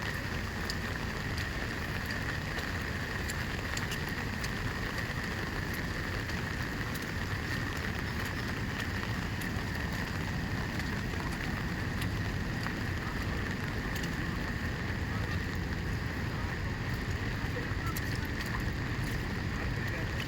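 Duduma waterfall's steady rushing roar of falling water, with a thin, steady high tone above it.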